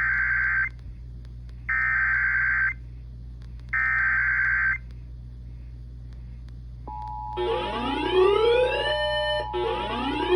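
Emergency Alert System SAME header: three bursts of warbling digital data tones, each about a second long, a second apart. About seven seconds in the steady EAS attention tone begins, and a rising, whooping siren sweep repeats over it about every two seconds.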